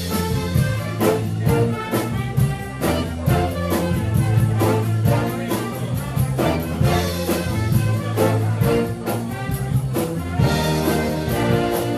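A big band playing: a section of saxophones, trombones and trumpets over a steady beat.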